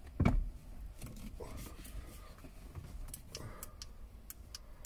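Handling noise from tools and car parts: a low thump a quarter second in, then scattered light clicks and taps.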